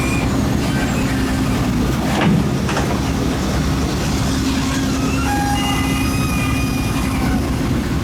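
Excavator's diesel engine running steadily under load, with two knocks about two seconds in and a few short high whining tones in the second half.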